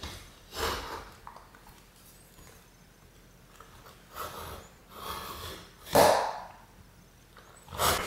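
Utility knife blade drawn along the paper face of a drywall sheet, scoring it in about five short scraping strokes; the stroke about six seconds in is the loudest.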